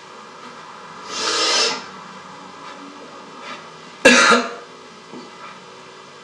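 A person coughing twice over a steady low electrical hum: a breathy cough or throat-clearing about a second in, and a sharper, sudden cough just after four seconds in.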